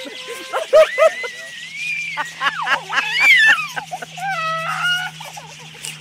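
Budgerigars chirping and squawking at close range, mixed with high, excited human squeals: many short arching calls and a few longer rising-and-falling cries.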